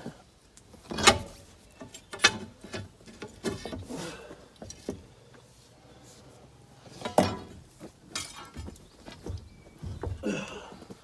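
Heavy steel clanks of pry bars and track against a crawler track's wheels as the thrown track is worked back on. Two loud ringing clanks come about a second apart, then two more some five seconds later, with lighter knocks between them.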